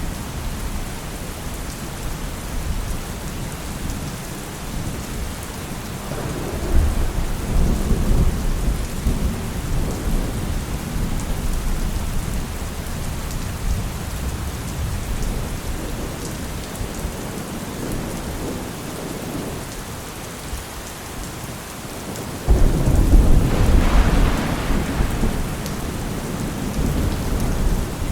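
Heavy rain falling steadily with rolling thunder. One rumble swells about a quarter of the way in, and a louder peal starts suddenly near the end and rumbles on.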